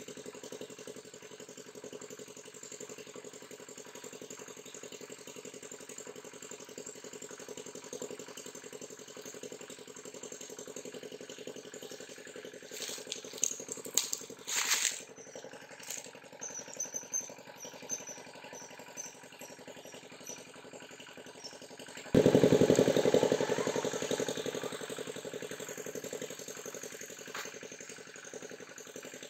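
Steady drone of an engine running in the background. A few sharp clicks come near the middle, and about three-quarters of the way through a sudden louder rush of sound sets in and fades over several seconds.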